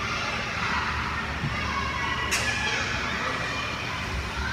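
Indistinct, high-pitched voices of children calling and chattering in the background, with one sharp click about two seconds in.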